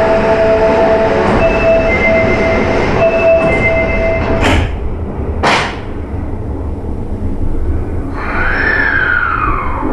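Osaka Metro 400 series subway car: steady warning tones play until about four and a half seconds in, then come two short sharp noises a second apart. Near the end the hybrid SiC VVVF inverter starts its whine, first rising and then falling in pitch as the train begins to pull away.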